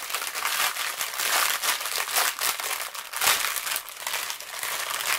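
Thin clear plastic bags of diamond-painting drills crinkling as they are handled and moved, a continuous crackle that is loudest about three seconds in.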